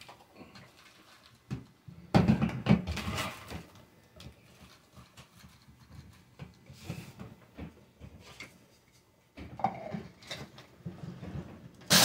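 Dried mushroom pieces being picked out of a wooden bowl by hand and dropped into an electric coffee grinder's cup: light, irregular rattles and clicks, busiest about two seconds in.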